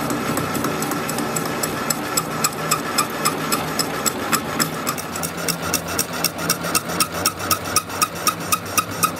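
Metal lathe turning a cast truck differential housing, its motor and spindle giving a steady hum. The cutting tool ticks against the spinning casting about four times a second, the ticks growing sharper from about two seconds in.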